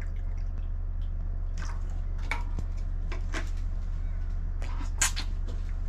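Utensils clicking and tapping against a pressure cooker pot and bowls while stewed mutton and radish are ladled out, a dozen or so light knocks with a sharper one near the end, over a steady low hum.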